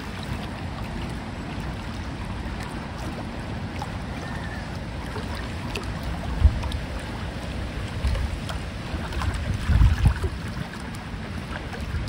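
Wind buffeting the microphone as a low rumble over a steady outdoor hiss, with a sharp gust about six and a half seconds in and stronger gusts near the end.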